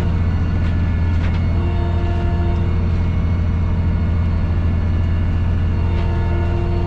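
Tractor engine running steadily under load while working a side-swing mower, a constant deep drone with a steady whine over it. A few faint knocks sound through it.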